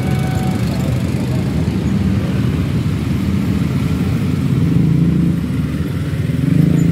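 Massed motorbike and scooter engines idling and pulling away in a crowd of traffic as a level crossing reopens, a steady engine drone. A three-wheeled bajaj's engine passes close, louder near the end.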